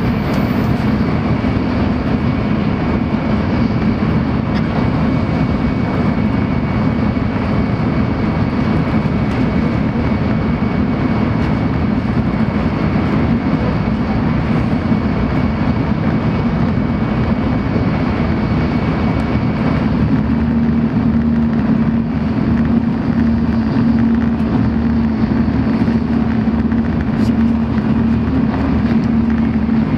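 Shinkansen bullet train running at speed, heard from inside the passenger cabin: a steady dense rumble with a low hum that grows stronger about two-thirds of the way through.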